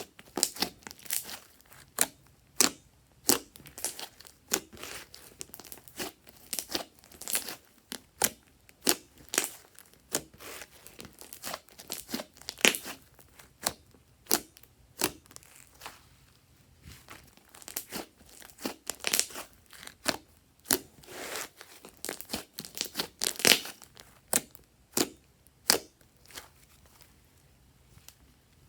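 Hands squishing and stretching fluffy slime: irregular sticky crackles and pops, about two or three a second.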